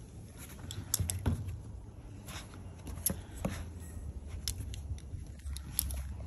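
Scattered light taps and clicks of a puppy's paws and claws on deck boards and its nose bumping the phone, about eight in all, over a steady low rumble.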